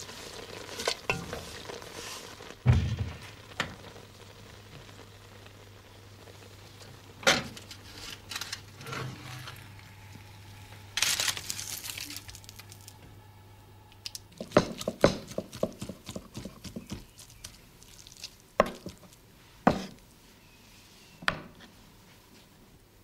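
Kitchen handling sounds: a wooden spoon stirring nettles cooking in a pan, then scattered clinks and knocks of an enamel baking dish and crockery being handled, with one short rustle about eleven seconds in.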